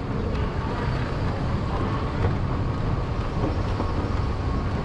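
Steady low rumble of an underground MRT metro station, with a train-like running noise.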